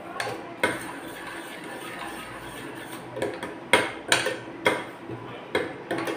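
Spoon stirring a thick gravy in a stainless steel pot, with a series of irregular sharp clinks as it knocks against the pot's sides and rim.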